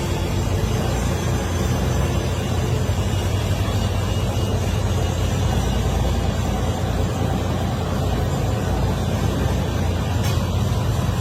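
Steady low machine rumble that holds at an even level, with a single faint click near the end.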